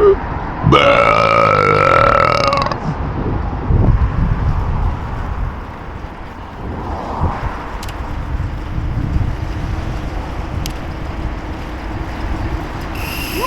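A loud, deliberately forced human burp, drawn out for about two seconds, followed shortly by a lower, rougher one, then quieter background noise.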